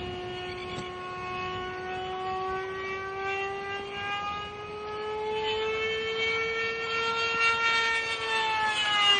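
Two-stroke engine of a model jet running at high revs with a steady, siren-like whine. The pitch climbs slowly and the sound grows louder, then the pitch falls near the end.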